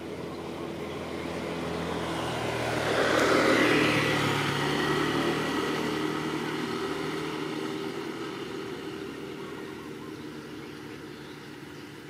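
Motorcycle engine passing by: it grows louder to a peak about three and a half seconds in, then slowly fades away.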